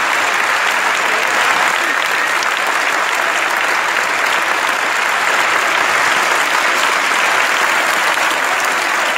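Large concert-hall audience applauding, a steady dense clapping that holds at one level throughout.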